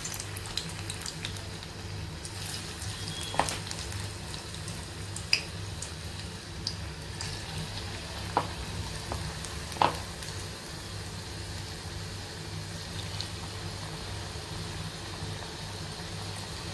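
Coriander bhaji batter deep-frying in hot oil in a kadai: a steady sizzle with a few sharp pops and crackles scattered through it.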